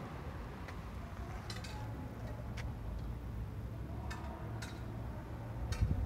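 Scattered sharp clicks and ticks, irregularly spaced, from footsteps on an icy, gritty sidewalk, over a steady low rumble.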